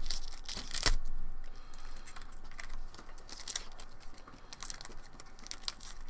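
Foil wrapper of a hockey card pack being torn open and crinkled in the hands: irregular crackling rips, sharpest at the start and about a second in, then smaller crinkles as the wrapper is peeled apart.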